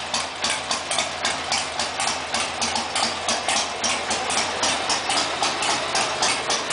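Freshly tuned engine idling with an even, pulsing beat of about four pulses a second.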